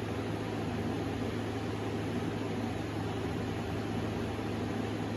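Air conditioner unit running: a steady low hum under an even rush of air. The owner finds the noise strange and wonders whether the unit is low on Freon or needs its filter checked.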